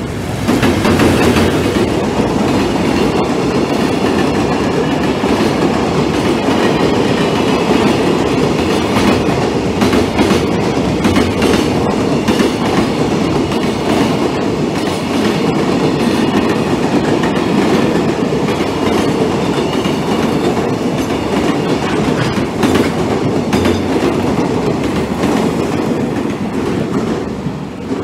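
Freight train hauled by an EF510 electric locomotive passing through at speed. The wheels on the rails make a loud, steady rumble with clacks over rail joints, dying away near the end as the last wagons go by.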